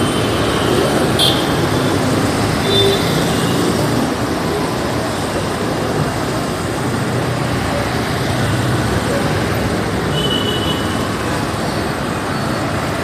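Steady city street traffic: car and bus engines and tyre noise from vehicles passing continuously. A sharp click sounds about a second in, and short high-pitched tones come through briefly a few times.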